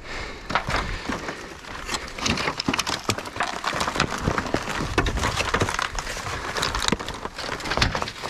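Dry brush and debris being pushed through and moved, giving irregular crackling, rustling and snapping.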